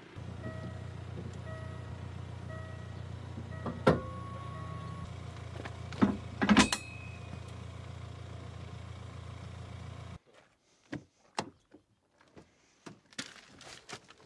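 Vehicle engine idling with a steady low hum, broken by a few loud metallic clanks like a tow-ball trailer coupling being handled. About ten seconds in the hum cuts off, leaving scattered knocks and clicks of a car door.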